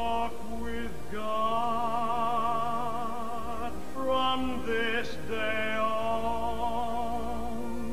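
Closing music: an operatic singing voice with vibrato holding long notes, with short breaks between phrases, over a low sustained accompaniment.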